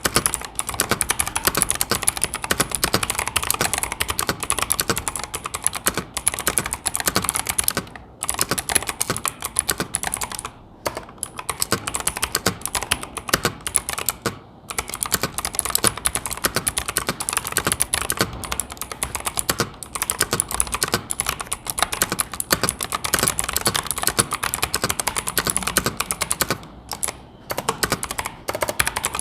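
Fast, continuous typing on an Asus ROG Strix Flare II Animate mechanical keyboard with ROG NX switches: a dense run of keystroke clacks, broken by a few brief pauses.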